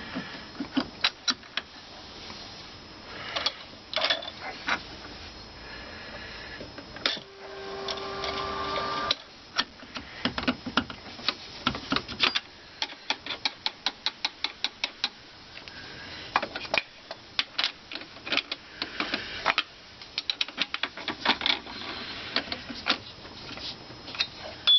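Quick runs of sharp metallic clicks and clinks as a grinding wheel is fitted and tightened onto a milling machine's arbor, with a short steady hum of about two seconds about a third of the way in.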